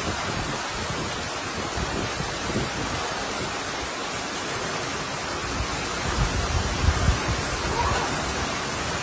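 Heavy rain falling in a steady downpour, an even hiss, with a few low rumbles about six to eight seconds in.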